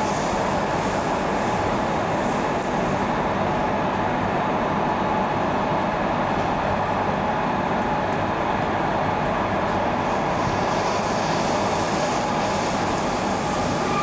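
Madrid Metro train running, heard from inside the carriage: a steady rumble and rush of wheels on rail, with a faint steady whine.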